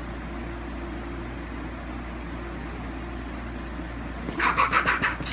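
Steady whir and hum of a box fan running. About four seconds in, a sudden loud, rapidly pulsing sound breaks in and carries on.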